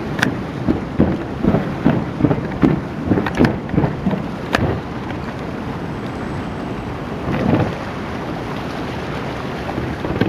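Fireworks shells bursting in a rapid barrage of booms and sharp cracks for about five seconds. Their rumble then lingers, with one more boom about 7.5 seconds in.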